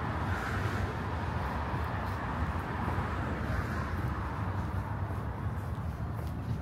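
City street traffic: a steady low rumble of passing vehicles, with one car's tyre and engine noise swelling past over the first few seconds.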